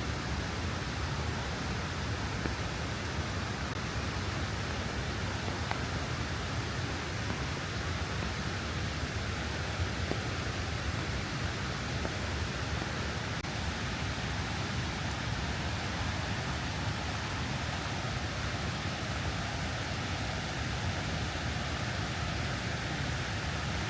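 Steady rain falling, an even, unbroken hiss with a low rumble underneath.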